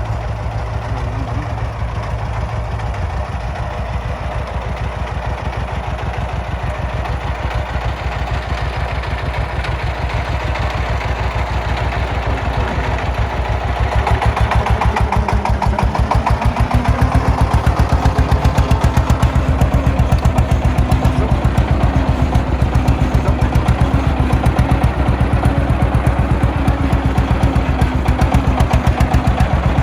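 Diesel engine of the excavator or công nông truck running with a fast, even beat. It gets louder about 14 seconds in and again a few seconds later.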